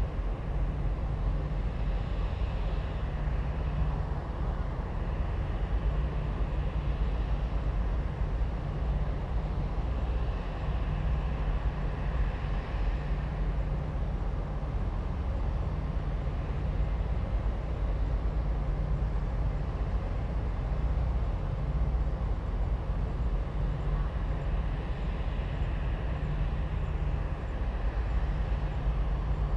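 Steady low outdoor rumble, with a faint hiss higher up that swells and fades every few seconds.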